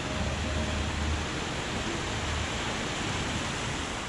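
Artificial rock waterfall: a steady rush of water spilling over the rocks and splashing into the pool below.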